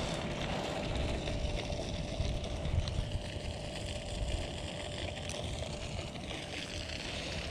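Outdoor ambience dominated by wind rumbling on the microphone over a steady hiss, with a faint steady tone running underneath.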